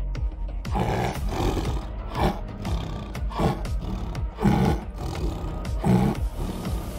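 Bengal tiger roaring in a series of about five short calls, a little over a second apart.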